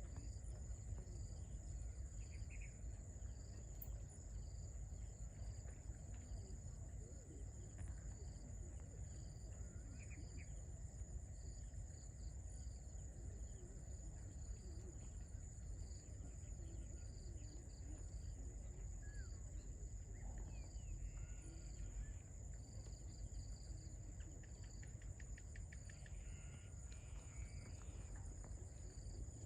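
Insects chirring in a steady high-pitched trill, with a second insect pulsing evenly beneath it, over a low outdoor rumble. A few faint bird chirps come through now and then, more of them near the end.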